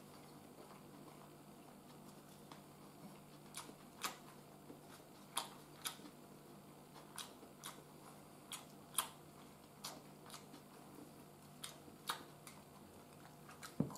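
Chopsticks clicking against a ceramic rice bowl while eating: a dozen or so faint, irregularly spaced taps over a low steady hum.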